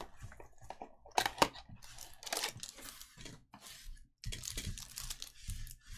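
A sealed trading card box being torn open by hand: plastic wrap crinkling and tearing, with cardboard crunching. There are two sharp snaps about a second in and a dense run of crinkling near the end.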